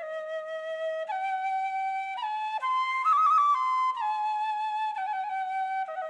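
Background music: a slow solo flute melody of held notes that climbs to its highest notes about halfway through, with a quick trill there, then steps back down.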